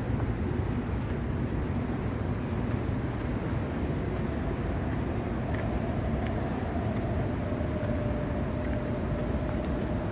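Steady low rumbling background noise. A faint steady hum comes in about four seconds in, with a few faint scattered clicks.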